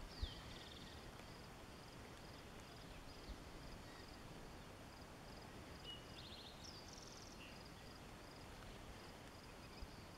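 Faint natural ambience with a steady hiss: an insect chirps in a high, even rhythm throughout. A small bird gives a falling note followed by a buzzy trill just after the start, and again about six seconds in.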